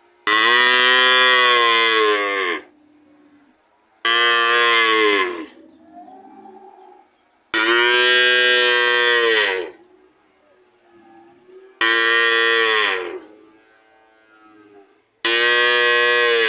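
Cow mooing: five loud moos about three and a half seconds apart, each one and a half to two and a half seconds long and dropping in pitch as it ends.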